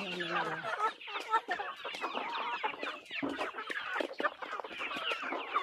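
A flock of hens clucking and chattering without pause as they feed, with many short clicks of beaks pecking at corn grits in a basin.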